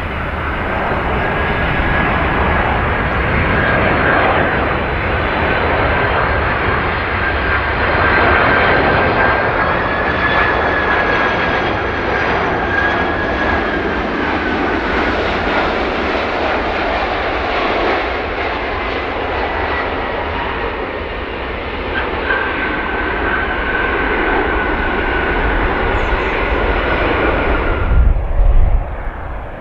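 Jet airliner's engines running close by: a steady roar with a high whine that drifts slightly in pitch. It cuts off suddenly near the end.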